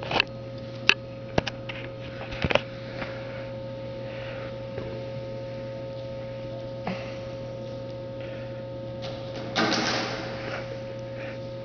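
Steady electrical hum in a large hall, with a few sharp knocks like footsteps on a wooden stage in the first three seconds. About ten seconds in comes a louder scraping clatter as a long board is set down on the stage floor.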